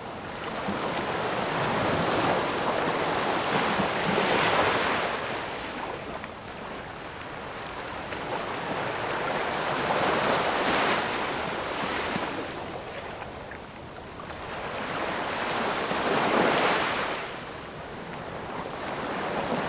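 Sea waves surging onto a shore: a wash of surf that swells and fades about every six seconds, three times.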